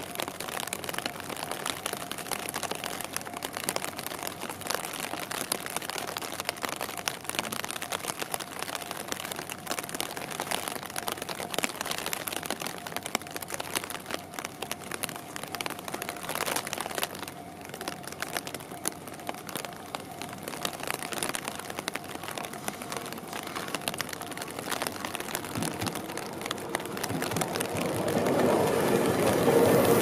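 Steady rain pattering, with the running noise of a Tobu Tojo Line electric commuter train that grows louder over the last few seconds as the train draws near and passes close by.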